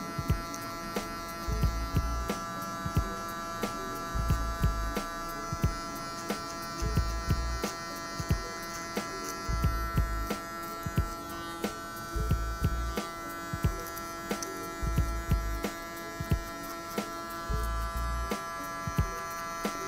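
Electric hair clipper buzzing steadily as it fades the neck hairline, over background music with a deep, regular beat about once a second.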